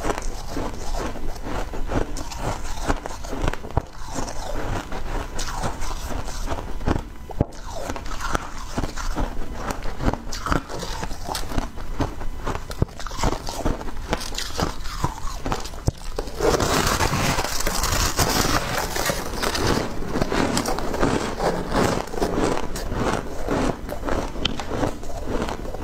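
Crunching of shaved, refrozen ice being bitten and chewed, a dense run of short crackling crunches, with a louder, denser stretch about two-thirds of the way in.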